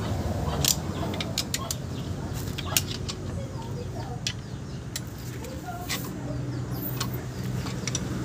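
Irregular sharp metallic clicks and taps of a hand tool working on a mini van's front steering knuckle and hub, over a steady low hum.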